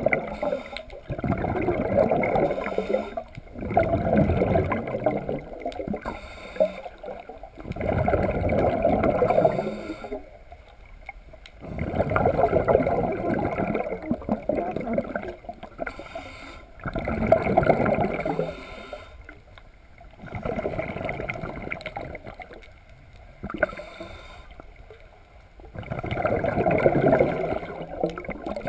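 Underwater gurgling and bubbling in repeated bursts of a second or two, coming every few seconds with quieter gaps between, heard through an underwater camera just below the surface.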